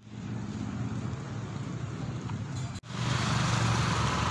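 Street noise with a steady low rumble of road traffic. It cuts out for a moment about three seconds in and comes back louder.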